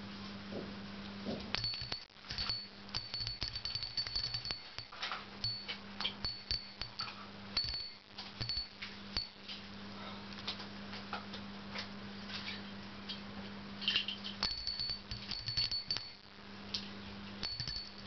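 A budgerigar jingling the small metal bell in its cage: quick, irregular clinks with a high ringing tinkle, in two spells, with a pause in the middle.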